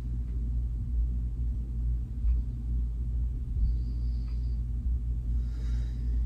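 Steady low rumble and hum of room background noise, with no speech.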